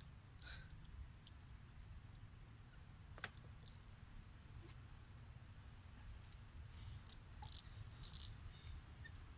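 Faint low rumble with a few scattered sharp clicks, the loudest two close together near the end.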